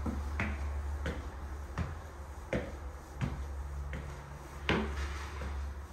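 Footsteps climbing hardwood stairs: a steady series of short knocks, about one step every three-quarters of a second, over a low steady hum.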